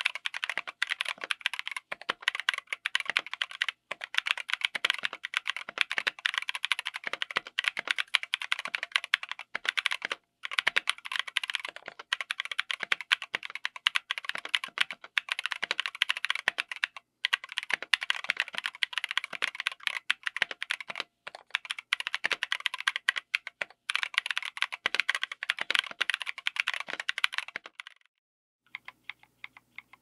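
Fast typing on a mechanical keyboard with Novelkeys x Kailh Cream linear switches, MT3 dye-sub PBT keycaps and an FR4 plate in an aluminium case: a dense clatter of keystrokes with a few brief pauses. Near the end the typing stops and a quieter run of separate, evenly spaced key presses follows.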